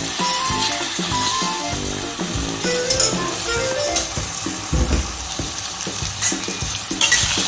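Sliced onions sizzling steadily in hot oil in a stainless steel wok, being fried until golden. A metal spoon clinks and scrapes against the pan now and then as they are stirred.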